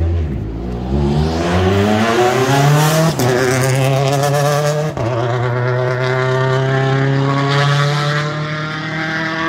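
Hyundai i20 N Rally1 car accelerating hard past and away, its turbocharged engine climbing steeply in pitch. The engine shifts up about 3 and 5 seconds in, then holds a steady pitch.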